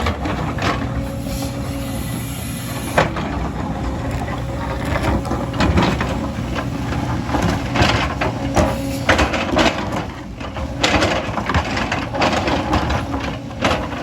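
A heavy earthmoving machine's diesel engine running steadily, with irregular clanks and knocks from the machine working earth and stones.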